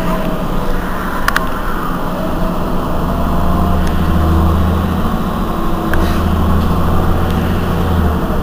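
Heuliez GX 127 city bus engine idling at a stop, heard from behind: a steady low hum, with a deeper drone that strengthens about three seconds in and cuts off just before the end. A couple of faint clicks are heard.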